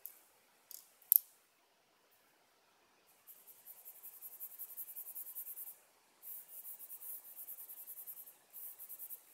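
A coloured pencil shading on paper in fast back-and-forth scratchy strokes, about eight a second, starting about 3 s in and pausing briefly twice. Before that, two sharp taps about a second in.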